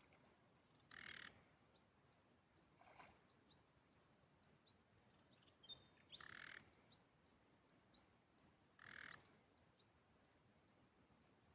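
Faint frog calls: four short croaks a few seconds apart, with tiny high chirps scattered in the background.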